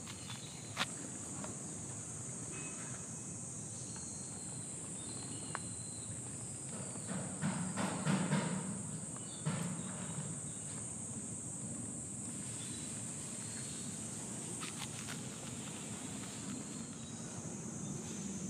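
A steady, high-pitched insect chorus, with a few sharp clicks and a louder jumble of noise about seven to ten seconds in.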